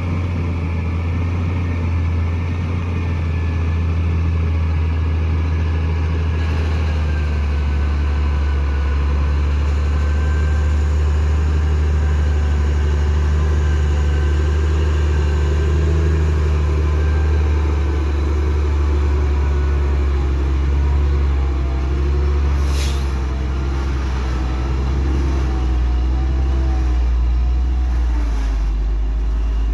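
Diesel engine of a heavily loaded tri-axle cargo truck labouring slowly up a steep grade, a steady low drone that wavers in pitch near the end. A brief hiss of air sounds about three-quarters of the way through.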